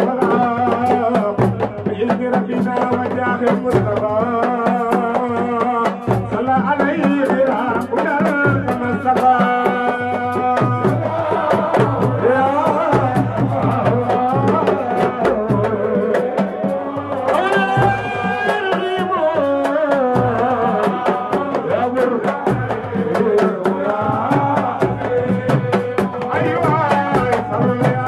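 Baye Fall zikr, a sung religious chant, with singing voices carrying a melody over a steady, repeating drum beat.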